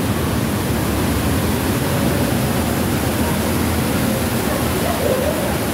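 Steady rush of running water, with faint distant voices near the end.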